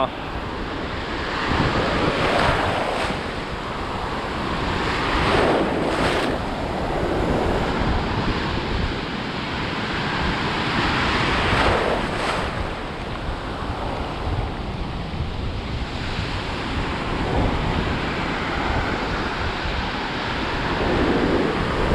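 Ocean surf washing around and breaking, with wind buffeting the microphone. A few louder wave surges stand out, a couple of seconds apart near the start and again about halfway through.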